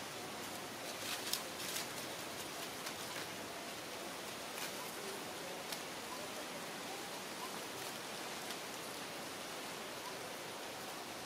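Steady outdoor background hiss, with a few faint short ticks, mostly in the first two seconds.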